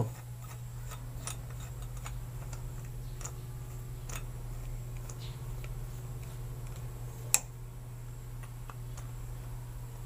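Screwdriver turning the retaining screw in the centre of a clear acrylic shower valve handle, with faint scattered ticks and one sharper click about seven seconds in. A steady low hum runs underneath.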